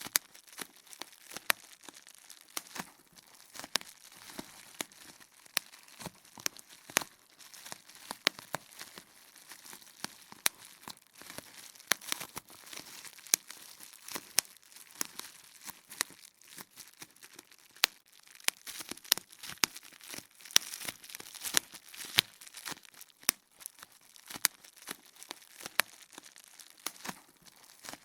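Bubble wrap popping: many sharp pops at an irregular pace, over the constant crinkling of the plastic sheet.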